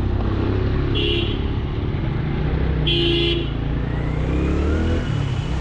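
Motorcycle engine running while riding along a wet street, with two short vehicle-horn toots about one and three seconds in. The engine pitch rises near the end as it speeds up.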